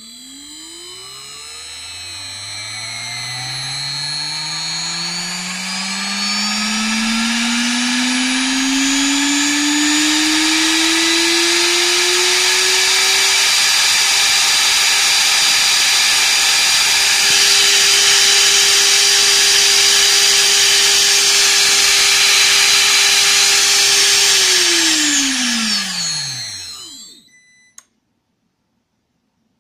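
1 kW CNC spindle motor, run without its cooling fan, spinning up with a steadily rising whine over about 13 seconds, then running at a steady high speed. Near the end it winds down, its pitch dropping quickly, and stops.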